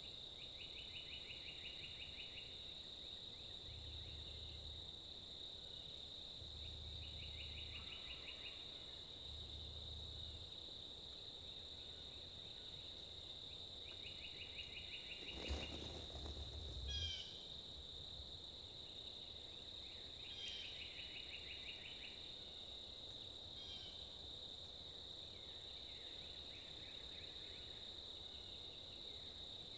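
Strutting wild turkey gobbler spitting and drumming: several deep, low hums of about a second each, and a sharp spit about halfway through followed by a longer drum. Behind it is a steady high insect buzz with short trills every few seconds.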